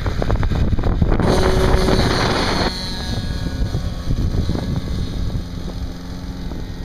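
RC model plane's propeller engine running hard and close as the plane is launched, then dropping off sharply about three seconds in. After that only a faint engine drone under wind on the microphone remains.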